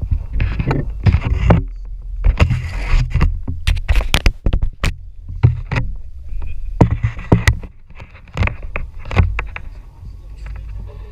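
Wind buffeting the microphone aboard a small boat at sea, with a constant low rumble and many irregular sharp knocks and rattles.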